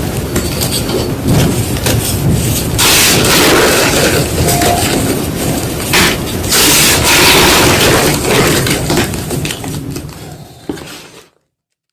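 White gym chalk being crushed, crunching and crumbling in a run of uneven, crackly bursts that fade out and stop suddenly about eleven seconds in.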